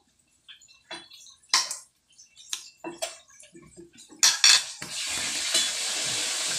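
Metal fork clinking and scraping on a plate as food is cut and picked up, several sharp clinks with the loudest pair about four seconds in. About five seconds in a steady hiss sets in.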